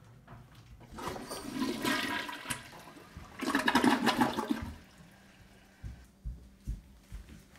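Toilet flushing: a rush of water in two surges, starting about a second in and dying away before the fifth second.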